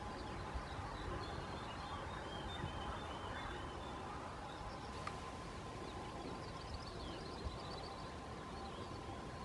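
Small songbirds singing over a steady outdoor background hiss: scattered short chirps in the first seconds, then a rapid trill of repeated high notes about seven seconds in.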